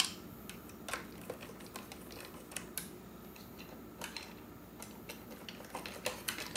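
Scattered light clicks and knocks of plastic as hands work a Roomba 700-series drive wheel module loose from the robot's housing, the sharpest click at the very start.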